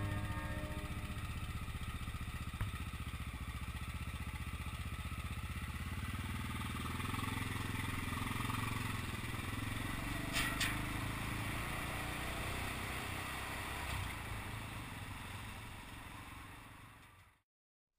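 Honda XR650L single-cylinder motorcycle riding across a steel-grate bridge deck, its engine running steadily. It fades out and stops just before the end.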